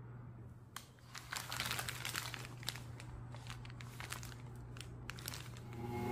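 Foil sandwich wrapping paper crinkling as it is handled, a run of crisp crackles. Just before the end a stand mixer's motor starts running.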